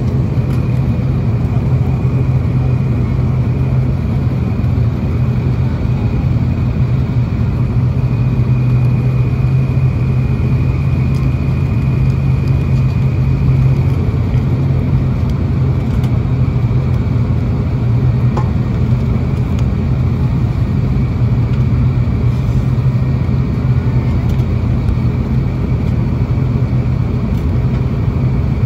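ATR 72-600 turboprop engines running during ground taxi, heard from inside the cabin: a steady, loud low drone with a faint high whine over it.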